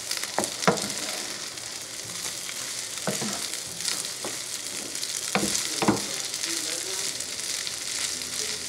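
Rice frying in butter in a large nonstick skillet over medium heat: a steady sizzle, while a wooden spoon stirs and chops the rice, knocking and scraping against the pan at irregular moments.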